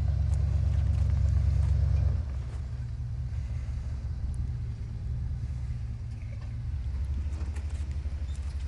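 Lifted pickup truck's engine running with a deep, pulsing rumble. It is louder for the first two seconds, then eases back to a steadier, quieter rumble as the truck creeps over the dirt.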